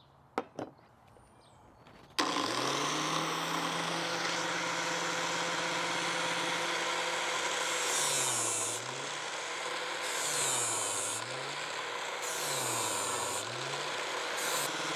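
Two light knocks, then an angle grinder fitted with a flap disc switches on about two seconds in and winds up to a steady whine. A worn steel mower blade is then drawn through the spinning disc in repeated passes. Each pass makes the motor dip in pitch under the load, with a loud grinding hiss as the edge is ground back to its 30-degree angle.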